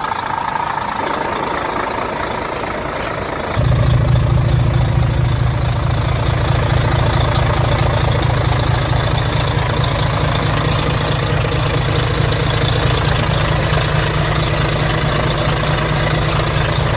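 Volvo D13K 13-litre straight-six diesel idling steadily, with a low, even diesel clatter. It gets markedly louder and deeper about three and a half seconds in.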